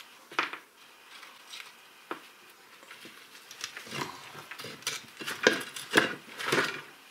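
Metal parts of a LuAZ-969M portal hub and its brake anchor plate knocking and clanking as they are handled and turned over on a workbench: a sharp knock about half a second in, another about two seconds in, then a run of louder clanks in the last three seconds.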